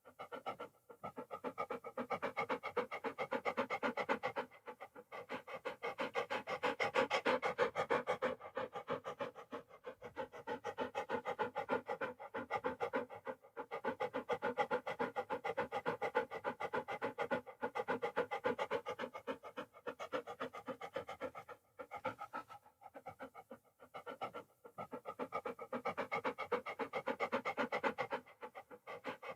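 Dog panting in rapid, even breaths, with short breaks every few seconds.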